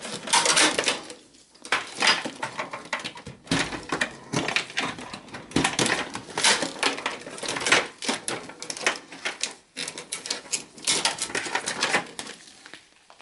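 A flat grey IDE ribbon cable being unplugged and pulled out of a desktop PC's open metal case: irregular rustling, scraping and clicking as the cable and connectors drag against the sheet-metal chassis and plastic parts, with a few brief lulls, dying away near the end.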